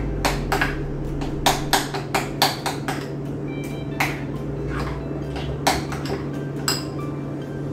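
A utensil clinking and knocking against a mixing bowl in irregular strokes as a topping mixture is stirred. The strokes are densest in the first few seconds.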